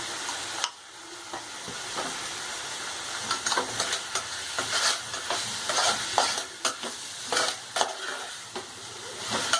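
Chicken pieces frying and sizzling in hot oil in a pan, with turmeric just added, as they are stirred. The sizzle dips sharply a little under a second in, and from about a third of the way on there are frequent short scrapes and knocks of the stirring utensil against the pan.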